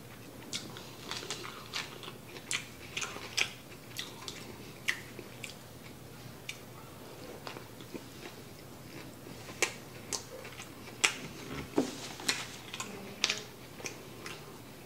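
A man biting into and chewing a cheeseburger, with irregular wet mouth clicks and smacks.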